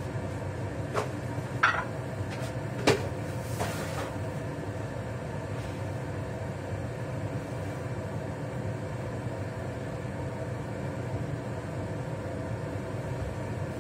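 Kitchen range hood fan running with a steady hum. A few sharp knocks and clinks of kitchenware being handled come in the first four seconds.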